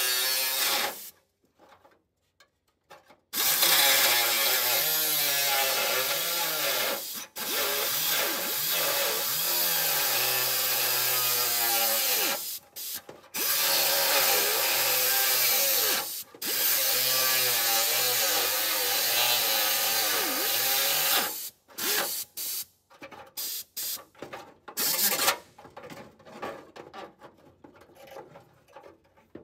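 Handheld power cutting tool cutting through a steel door crash bar inside a car door, in long runs of several seconds with short stops and a few shorter bursts near the end, its pitch wavering as the load changes.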